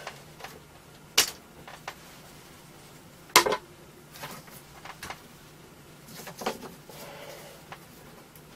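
Clicks and knocks of a VGA cable and its plug being handled and pushed into the side of a portable computer, two sharp knocks about a second and three and a half seconds in the loudest. A faint steady hum lies underneath.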